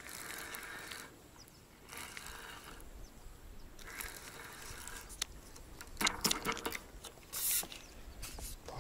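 Spinning reel being wound on a float rod, its handle turned in several short spurts with pauses between.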